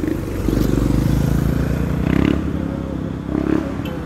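Motor vehicle engine rumbling as it drives past close by, swelling about half a second in and fading toward the end.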